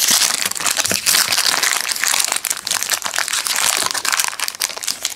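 Metallic foil wrapper of a 2013-14 NBA Hoops trading-card pack crinkling as hands twist and peel it open: a dense run of quick crinkles, easing a little near the end.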